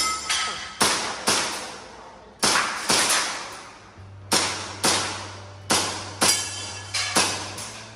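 Airsoft pistol firing a string of about fourteen sharp shots, in singles and quick pairs, as an IPSC Action Air stage is shot. Each shot trails off in a ringing tail.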